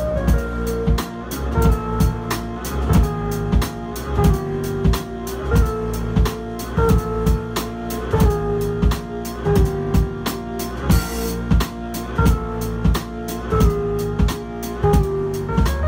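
Instrumental band music: synthesizer keyboards playing a sustained melody and bass line over a drum kit keeping a steady beat.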